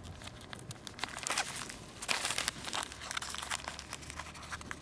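Kite sail fabric rustling and crinkling in irregular bursts with small clicks as it is handled and a bungee cord is threaded through a hole in it.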